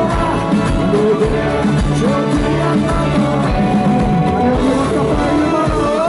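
Live rock band playing loud through a PA system: a singer over electric guitar and a steady drum beat.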